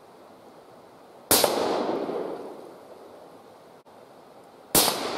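Two suppressed rifle shots about three and a half seconds apart, each a sharp report followed by an echo that dies away over about a second. The suppressor has two extra rings added, and the noise isn't that bad: quiet enough to shoot without earmuffs.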